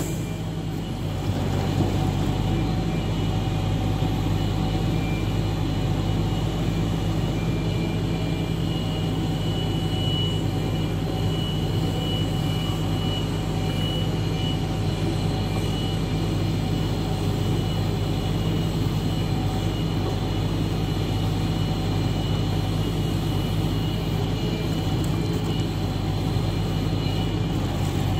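Log truck's diesel engine running steadily to power its truck-mounted knuckleboom log loader, a constant low drone with a faint high steady tone over it.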